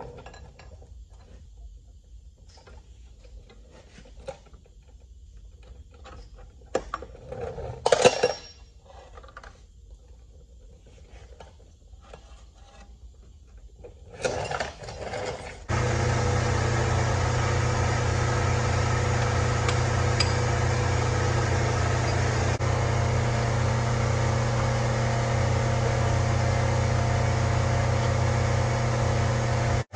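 Metal clicks and clanks from drum brake shoes and return springs being worked off a truck's brake backing plate with a brake spring tool, with one loud clank about eight seconds in. About halfway through, a loud steady machine hum starts suddenly and carries on.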